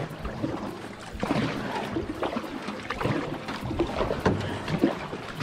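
Canoe paddle strokes in river water: the blade dips and pulls with irregular splashes and drips, stroke after stroke.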